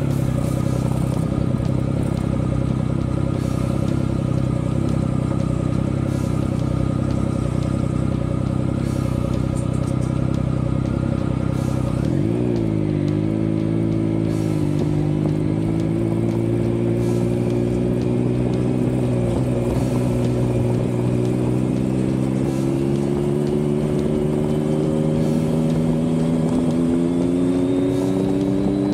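Triumph Speed Triple 1050S's inline three-cylinder engine running at steady revs on the move. About twelve seconds in the revs dip and wobble briefly, then climb steadily and smoothly as the bike accelerates.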